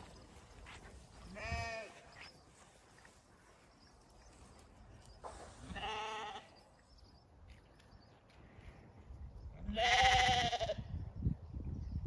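Zwartbles sheep bleating: three quavering calls about four seconds apart, the last the loudest.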